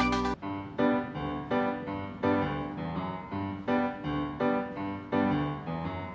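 Background music: a fuller passage breaks off about half a second in, giving way to a gentle keyboard melody of separate piano-like notes.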